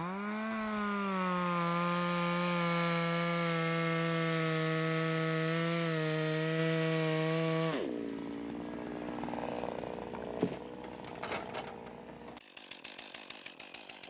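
Chainsaw engine revving up at the start and held at steady full throttle while cutting into the base of a standing tree. About eight seconds in it drops off to a lower, rougher note with a few sharp knocks, and it falls to a fast ticking idle near the end.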